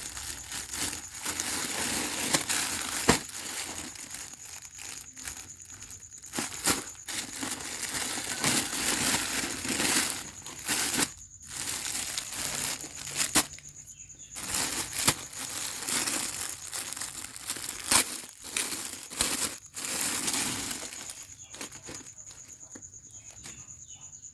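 Packaging being handled and unwrapped: irregular crinkling and rustling of paper or plastic, with a few sharp clicks and knocks.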